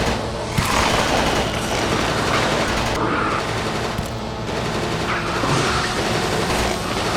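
A sustained fusillade of automatic gunfire, shots coming thick and fast without a break.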